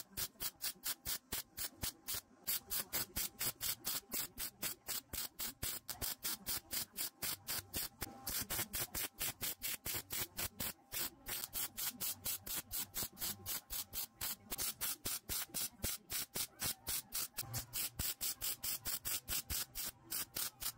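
MIG welder arc crackling in short, evenly spaced bursts, about four a second, as the sections of an exhaust pipe are welded together at the joints.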